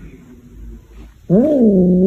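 A pet animal's long, loud cry starts suddenly past the middle, rising and then falling in pitch.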